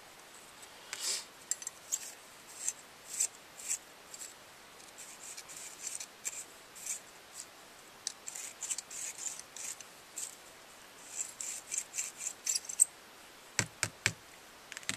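G&G Tools bolt carrier cleaner scraping carbon out of the inside of an AR-15 bolt carrier: many short, irregular rasping strokes, then a few sharp knocks near the end.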